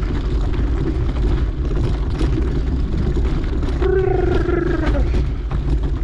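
Mountain bike riding noise: a steady low rumble of tyres on dirt trail and air rushing past the microphone, with scattered clicks and rattles. About four seconds in, a short falling call from a voice cuts through.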